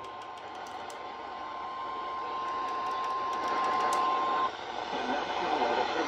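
NOAA weather radio sounding its single-pitch warning alarm tone through its small speaker over static hiss, getting louder as the volume is turned up. The tone marks an incoming warning broadcast. It cuts off about four and a half seconds in, leaving the hiss.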